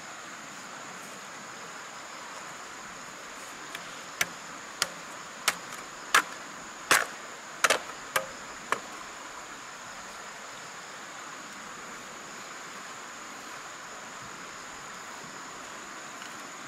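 About eight sharp knocks, roughly two-thirds of a second apart, from a tool chopping or striking wood, loudest in the middle of the run. Under them is a steady high-pitched insect drone.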